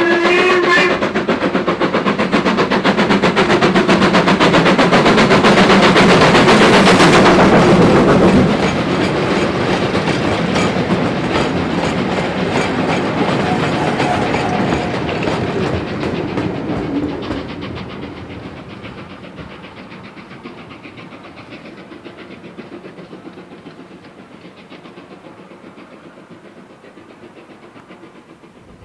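LMS Ivatt Class 2MT tank engine No. 41312 steaming past at close range with a train of goods vans, loudest about seven seconds in. After the engine has gone by, the vans and brake van rattle over the rail joints and fade into the distance.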